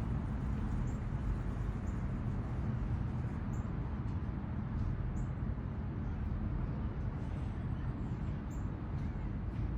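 Steady low rumbling outdoor background noise, with faint short high-pitched chirps scattered through it about once a second.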